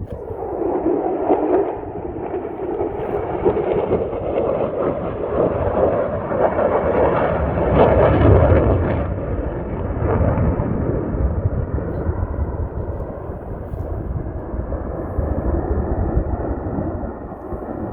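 F-35 fighter jet's single turbofan engine passing overhead, a loud rumbling, crackling jet noise that comes in suddenly, is loudest about eight seconds in, then slowly fades.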